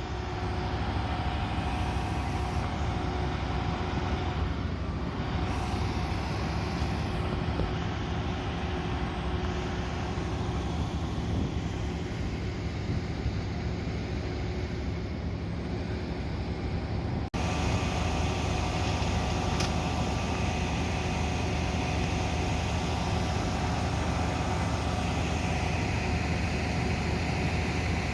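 A fire apparatus engine idling: a steady mechanical drone with a few constant humming tones. It drops out for an instant about seventeen seconds in, then carries on a little brighter.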